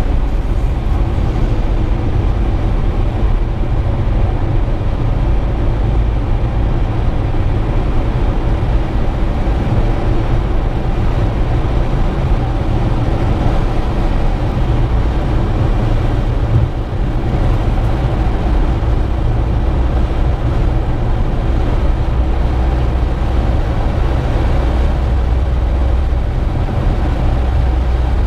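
Steady engine and tyre noise of a car driving at highway speed, heard from inside the cabin, with a brief slight dip partway through.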